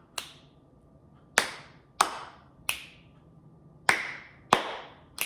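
Hand claps and finger snaps in a repeating clap, clap, snap rhythm: a snap just after the start, then two full rounds of two claps followed by a snap, the last snap right at the end.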